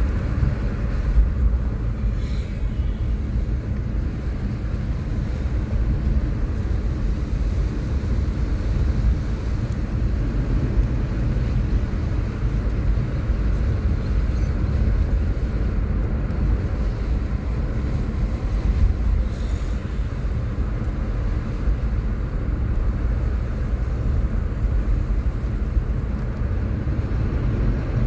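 Steady road and engine noise inside a car cruising on an open road: an even low rumble that holds level throughout.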